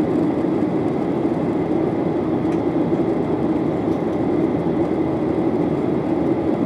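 Steady cabin noise of a Boeing 737-800 in flight, heard from a window seat inside the passenger cabin: the even rush of its CFM56 turbofans and the airflow over the fuselage.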